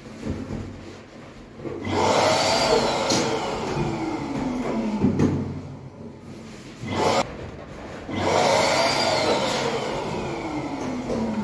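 Electric balloon inflator running in two bursts of about three seconds each, its motor note falling steadily as each balloon fills. A few short knocks come between the bursts.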